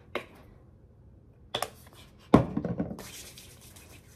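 A few clicks and knocks from a plastic bottle being handled, the loudest a thud about two and a half seconds in. About three seconds in, hands start rubbing together, making a steady rubbing hiss.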